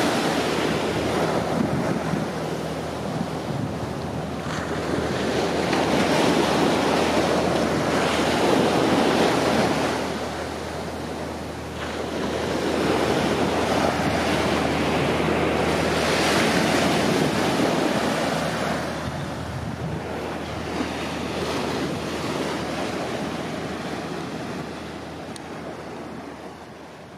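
Gulf of Mexico surf breaking and washing up a sandy beach, swelling and easing in surges every several seconds, fading out near the end.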